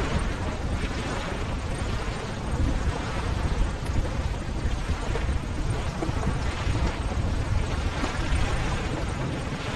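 Ocean waves: steady rushing surf with a deep rumble, swelling and easing a little as the waves break.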